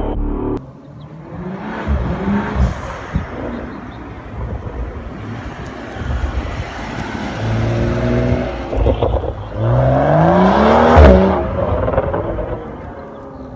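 BMW M235i's turbocharged 3.0-litre inline-six, breathing through an M Performance exhaust with the mid muffler deleted, revving several times. The longest and loudest is a steep rise in pitch about ten seconds in that peaks and breaks off around eleven seconds.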